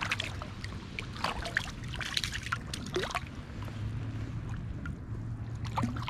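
Water splashing and sloshing in a shallow river as a hooked trout thrashes at the surface while being brought to hand, with uneven small splashes and drips.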